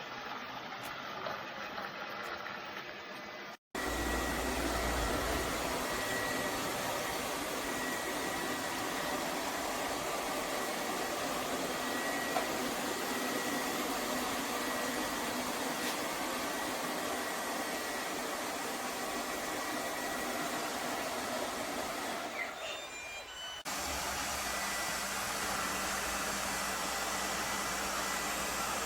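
Lefant M210 Pro robot vacuum cleaner running: the steady whirring hiss of its suction fan, with a faint thin high whine. The sound cuts out for a moment a little under 4 s in and dips again a little past 22 s.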